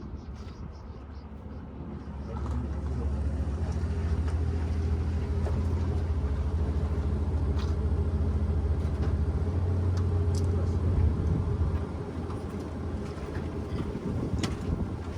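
A motor vehicle's engine running close by with a steady low rumble that comes up about two seconds in and eases off after about ten seconds. A few light clicks and knocks are scattered through it.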